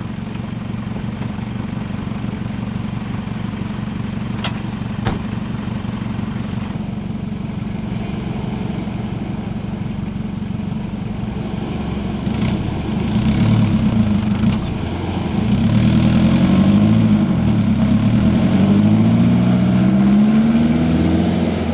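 4x4 SUV engine running steadily, then revved up and down repeatedly and louder from about halfway, as it tries to pull out of soft sand where it is stuck on its belly.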